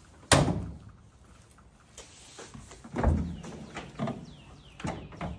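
A car door shutting with a loud thump, then clunks and clicks as the BMW E30's hood is lifted open, with a few short squeaks.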